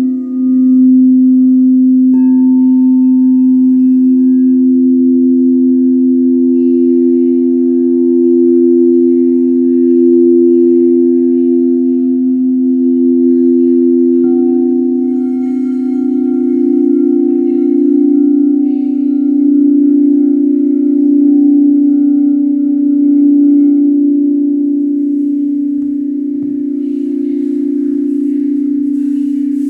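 Crystal singing bowls ringing together in long held tones that slowly swell and ebb. A higher tone joins about two seconds in, and another around fourteen seconds in.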